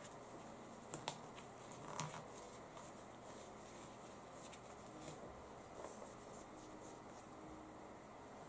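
Faint rustling of paper and fabric being handled while a paper pattern is pinned to a piece of red fabric, with a few small clicks, two close together about a second in.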